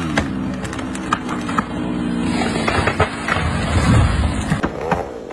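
Two-stroke chainsaw engine running, its pitch dropping just before and settling steady, with scattered sharp knocks and cracks.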